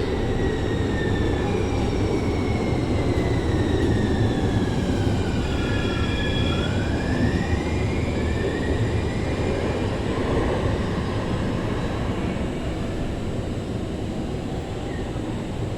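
San Francisco Muni Metro light-rail train in an underground station, with a steady rumble of wheels and running gear. Its electric traction motors whine in several tones that fall in pitch for the first few seconds, then rise again from about six seconds in.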